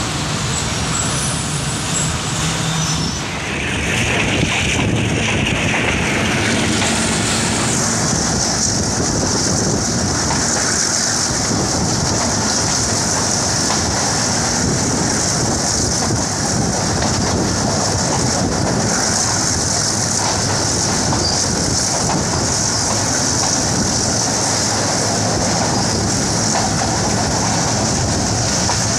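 Passenger train running on the rails, heard from inside a coach: a steady rumble and rattle of wheels on track that grows louder about four seconds in as it gathers speed, with a steady high hiss joining from about eight seconds in.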